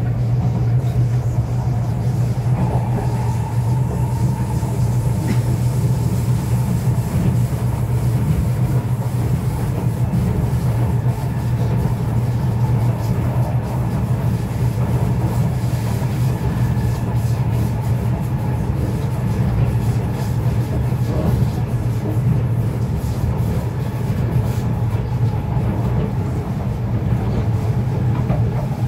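Cabin noise inside a Kawasaki–Nippon Sharyo C751B metro train running at speed: a steady low rumble of wheels on rail, with a faint steady whine above it.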